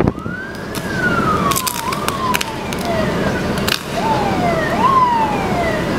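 Emergency vehicle sirens wailing, more than one at once: each tone jumps up in pitch and then slides slowly down, over and over, against a steady rush of background noise.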